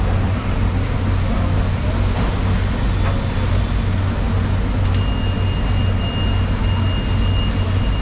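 A steady low mechanical hum under a continuous noisy background. A thin high whine comes in about five seconds in and holds.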